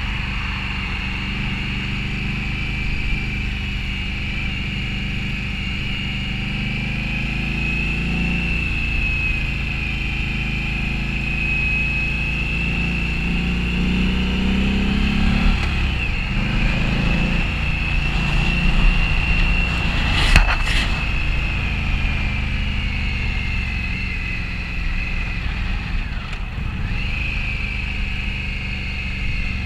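2015 Indian Scout's 1133 cc liquid-cooled V-twin running under way. The engine note climbs about halfway through and dips briefly near the end, under a steady high whine, with one sharp click about two-thirds of the way in.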